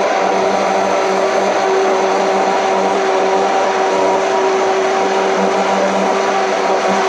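Commercial hand-held immersion blender running steadily, its motor giving a constant whine as it purees roasted pumpkin soup in a stainless steel pot.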